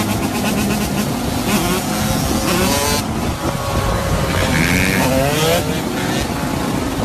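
Several motorcycle engines running together in a riding group, revving up and falling back, with pitches rising and dropping over one another.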